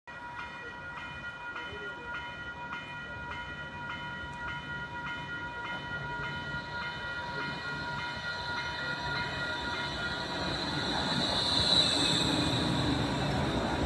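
A level-crossing warning bell ringing about twice a second as a Bombardier ION light rail train approaches. The bell fades about ten seconds in as the train's running noise grows, peaking in a high squeal that slides down in pitch as the train slows alongside the platform.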